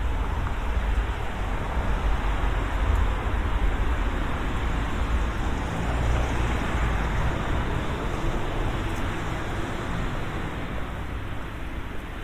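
Road traffic noise, swelling around the middle as a vehicle goes by, then easing off.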